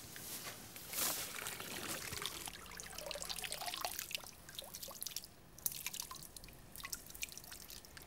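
Pond water dripping and trickling from a dip net heavy with duckweed as it is lifted out, in many separate drops with a brief splash about a second in.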